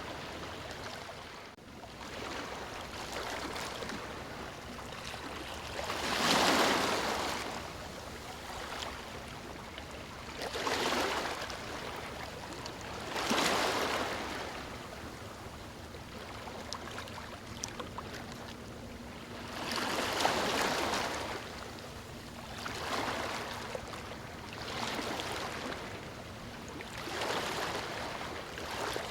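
Ocean waves breaking on a beach: surges of surf every few seconds that wash back into a softer hiss between them.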